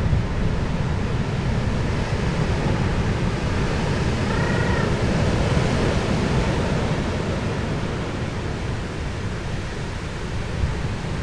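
Steady rushing sea and wind noise, heaviest in the low end, with one short rising-and-falling high call about four seconds in.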